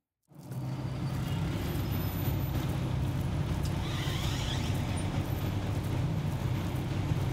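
Steady low rumble of a running vehicle with road noise, cutting in suddenly from silence just after the start.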